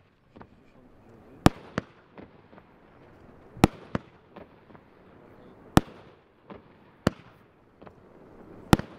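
A 19-shot fireworks cake firing shot after shot: four sharp bangs roughly two seconds apart, most followed closely by a fainter crack, with a few small pops in between.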